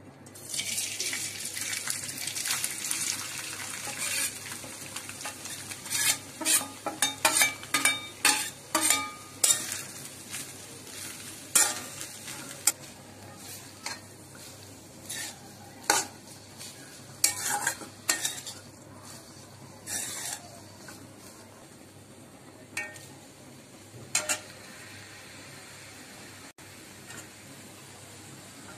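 Shredded boiled chicken dropping into hot oil in a wok and sizzling, then a spatula stirring and scraping it around the pan, with many sharp clacks of the spatula against the wok, thickest in the middle and fewer toward the end.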